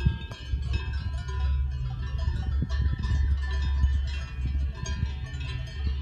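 Many cowbells on a grazing herd of cows clanking and ringing irregularly, their overlapping tones of different pitches running together, over a steady low rumble.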